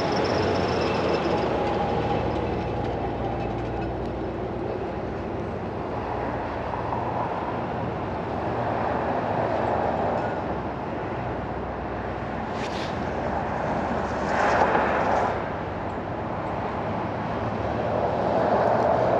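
Steady motor-vehicle traffic rumble with a low engine hum, swelling a few times as vehicles pass, and a brief sharp high sound about 13 seconds in.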